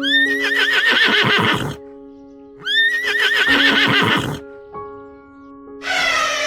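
A horse neighing twice, each whinny opening with a high, quavering tone that drops into lower pulses. Near the end a different animal call begins, falling in pitch. Steady background music plays underneath.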